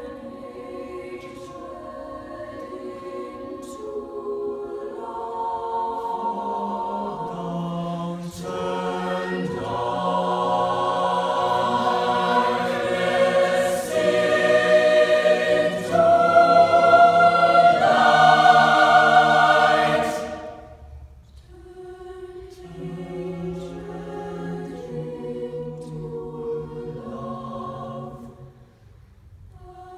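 Mixed-voice high school madrigal choir singing a cappella in sustained chords. The singing swells louder to a peak, cuts off sharply about two-thirds of the way through, and then starts again softly.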